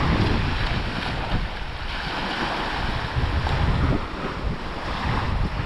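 Wind buffeting the microphone with a low rumble, over the wash of waves.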